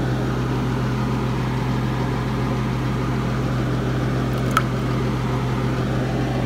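Kitchen fan running with a steady low hum, with a single short click about four and a half seconds in.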